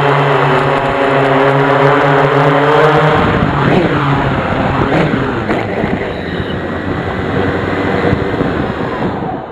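Octocopter's electric motors and propellers humming at a steady pitch as heard from the onboard camera. About three seconds in, the pitch breaks into sweeps up and down as the motors change speed in low, fast flight.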